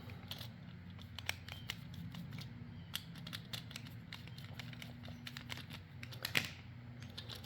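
Faint, irregular small clicks and scrapes of wire ends and plastic GFCI plug parts being handled as the cord's wires are pushed into the plug's terminals, over a low steady hum.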